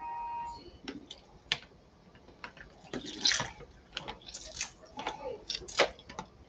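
An orange half being pressed in a hand-held hinged lemon squeezer over a plastic zip-lock bag: scattered small clicks and rustles of the squeezer and bag, with juice dripping into the bag.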